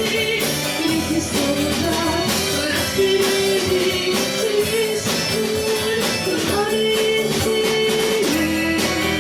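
Rock band playing a song: guitars and drums under a melody sung or played in long held notes.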